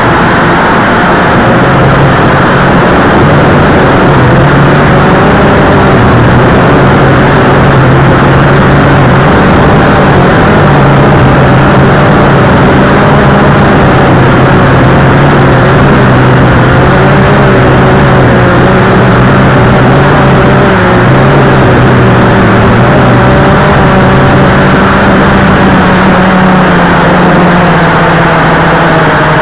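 Brushless motors and propellers of a Blade 350QX2 quadcopter in flight, heard from its onboard camera. A loud, steady hum over rushing noise, its pitch shifting slightly up and down as the motors change speed.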